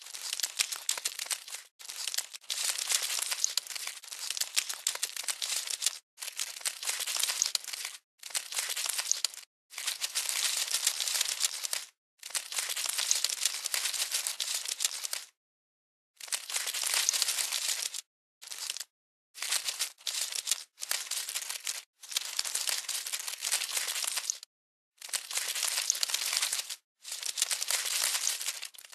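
Crackly rustling and scratching sound effect, cut into irregular bursts of half a second to about four seconds. Each burst starts and stops abruptly, with dead silence between, and a cluster of short bursts comes a little past the middle.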